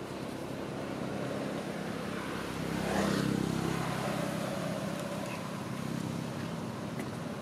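A motor engine running and passing by: it grows louder to a peak about three seconds in, its pitch drops as it goes past, and then it slowly fades.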